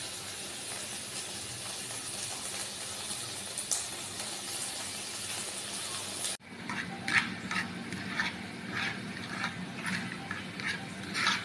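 Egg mixture cooking in a pan without oil: a steady sizzling hiss that cuts off abruptly about six seconds in, followed by irregular crackles and pops as the mixture bubbles.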